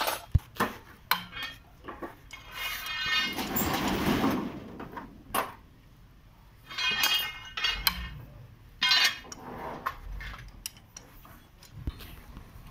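Steel hand tools clinking and knocking against the parts of a truck diesel engine during teardown: a run of sharp metallic clicks and clanks, with a few longer rasping metal-on-metal bursts, as a spanner works on bolts.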